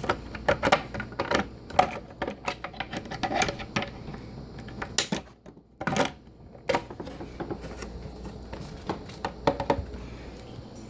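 Plastic clicks and taps from a dishwasher soap dispenser lid being handled and fitted back into place, in quick irregular runs with a short pause about halfway.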